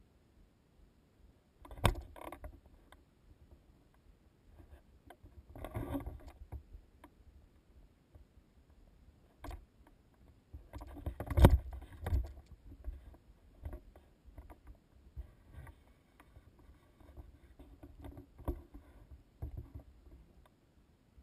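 Footsteps crunching and scuffing on a rocky, gravelly trail, uneven in pace, with a few sharper knocks; the loudest comes about eleven and a half seconds in.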